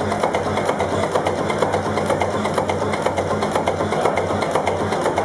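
Old multi-cylinder marine diesel engine with open rocker gear running steadily: a rapid, even mechanical clatter over a low hum.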